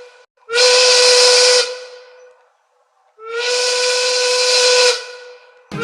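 The Lehigh Valley Phantoms' ice hockey goal horn blowing in separate long blasts, a steady whistle-like tone over a hiss. There is a short blast about half a second in, a longer one from about three seconds to five, and another starts just at the end.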